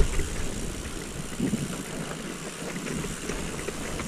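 Mountain bike riding downhill over a snow-covered trail: tyres running through snow, with small rattles and knocks from the bike frame.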